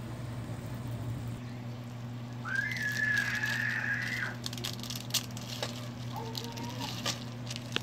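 A high whistle is held steady for about two seconds. Then come light clicks and crinkling as dry odong noodles are shaken from a plastic wrapper into a pot of sardine stew. A steady low hum runs underneath.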